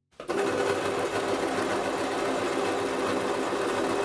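Domestic electric sewing machine starting up just after the beginning, then running steadily as it stitches a seam through fabric.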